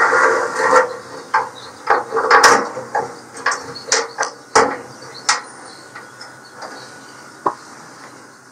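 Metal-on-metal clicks, knocks and scraping as a thin steel RTD temperature probe is worked into its hole in a pellet grill's steel barrel wall: a run of sharp ticks and taps over the first five seconds or so, with rubbing scrapes among them, and one last click a couple of seconds later.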